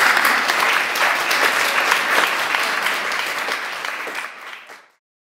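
Audience applauding, dying down after about four seconds and cutting off suddenly just before the end.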